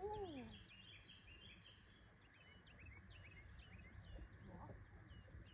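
Faint chorus of small birds chirping and calling continuously in quick short notes, over a low steady outdoor rumble.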